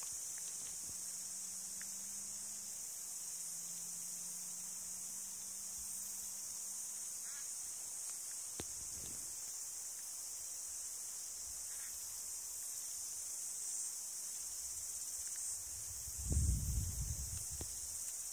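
Steady high-pitched chorus of insects shrilling outdoors. Low rumbling noise comes near the end, and a faint low hum runs through the first several seconds.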